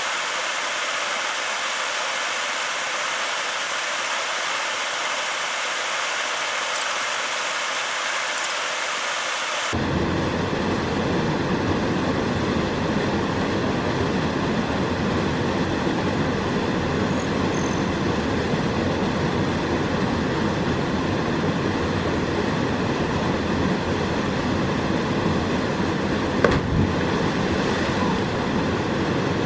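Waterfall plunging into a rock pool: a steady rushing roar. For about the first ten seconds only the hissing upper part is heard, then a deeper rumble comes in and holds. One short knock near the end.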